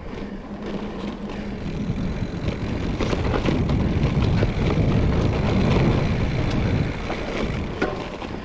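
Trek Fuel EX 5 full-suspension mountain bike ridden along a dirt trail: a rushing, rumbling ride noise that builds to its loudest in the middle and eases off near the end, with scattered clicks and rattles.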